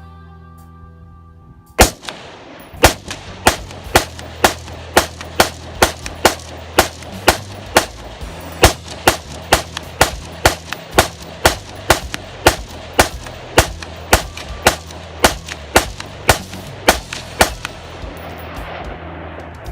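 A firearm fired in a long, steady string of about thirty shots, roughly two a second, with background music underneath.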